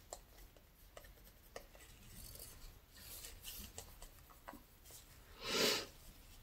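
Soft scraping and light taps of a wooden craft stick in a plastic cup of acrylic paint, with one louder brief swish about five and a half seconds in.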